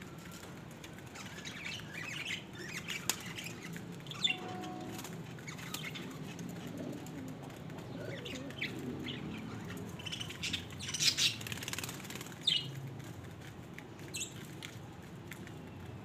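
Domestic pigeons feeding at a grain tray: scattered wing flaps and pecking, with short bird chirps throughout.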